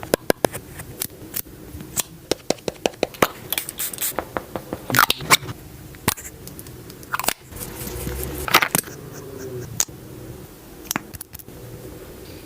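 Makeup products being handled: a quick, irregular run of sharp clicks and taps from cases and lids, with a few brief scratchy strokes.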